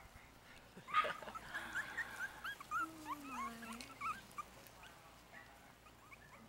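Four-week-old Yorkshire terrier puppies whimpering in short, high squeaks, starting with a sharper yelp about a second in, the loudest sound here; the squeaks thin out after a few seconds.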